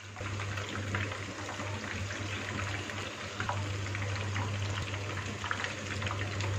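Chicken boti skewers sizzling in hot oil in a frying pan, a steady crackle with many small pops, over a low steady hum.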